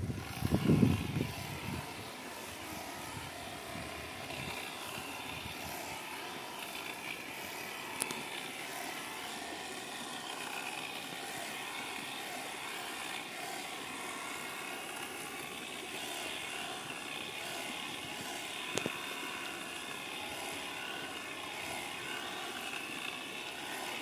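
Steady hum of a small camera drone's propellers in flight, several tones held together. A louder low rumble sounds in the first two seconds, and there are two faint clicks, one about a third of the way in and one near the end.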